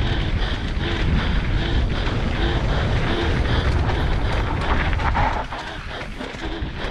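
Enduro motorcycle engine running hard on a rough trail, heard over wind buffeting the helmet microphone; it gets quieter about five seconds in.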